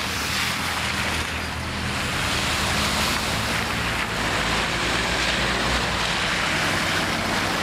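Vehicles driving slowly past close by on a wet, waterlogged road: engines running low, under a steady hiss of tyres on the water that grows louder as they pass.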